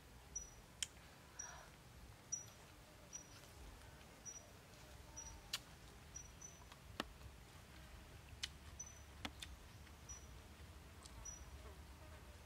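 Faint, short, high chirp from a small animal, repeating about once a second, with scattered sharp clicks in between.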